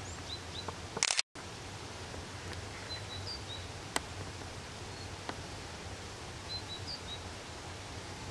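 A small bird singing short, high chirping phrases, the same phrase coming back about every three and a half seconds, over a steady low rumble of outdoor ambience. About a second in, a brief loud burst of handling noise cuts to a moment of silence, and a few small clicks follow.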